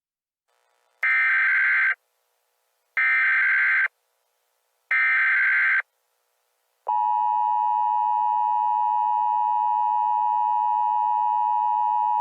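Emergency Alert System header: three short bursts of data tones, each just under a second long and about a second apart. A long, steady attention tone begins about seven seconds in.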